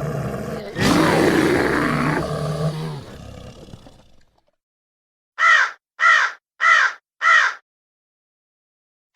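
A deep animal roar that swells about a second in and fades out over the next few seconds. After a short silence come four short, harsh bird caws, evenly spaced about two-thirds of a second apart.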